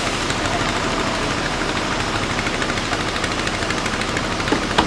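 An engine running with a fast, even clatter, with a couple of sharper knocks near the end.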